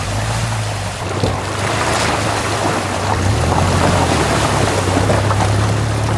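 SUV driving through a shallow stream: the tyres churn and splash through running water over a steady low engine drone.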